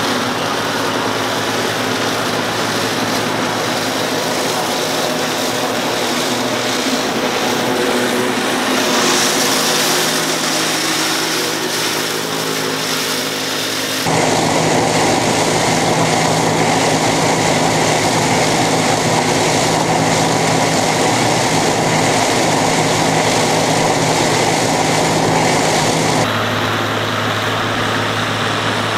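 Allis-Chalmers 190XT tractor engine running steadily under load while the Gehl 750 forage harvester it pulls chops standing corn into silage and blows it into a wagon. The mix shifts abruptly about halfway through and again near the end.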